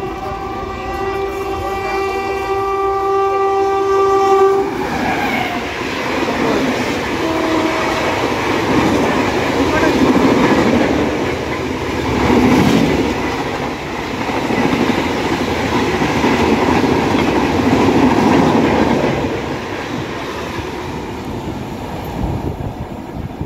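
An electric locomotive's horn sounds a long steady blast that stops about four and a half seconds in. An express train then runs through at full speed, a loud rush of coaches with a rapid clickety-clack of wheels over rail joints, fading near the end.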